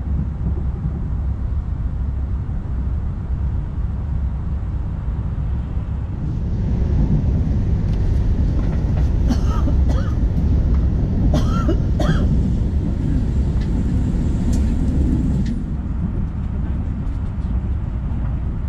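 Passenger train running along the track, heard from inside the carriage: a steady low rumble that grows louder and hissier for several seconds in the middle, with a few brief higher-pitched sounds about halfway through.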